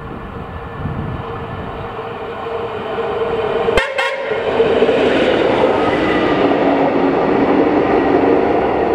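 Esslinger diesel railcar passing close by: its engine and running noise build as it approaches, with steady held tones over the noise. Two sharp clicks come about four seconds in as it goes by, and the noise stays loud after that.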